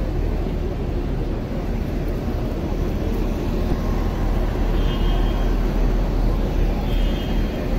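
Steady city street noise of traffic, a constant low rumble with no single event standing out.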